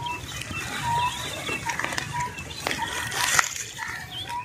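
Birds calling: short clear notes repeated about every half second, with higher chirps among them, over a low rustle and a couple of sharp clicks.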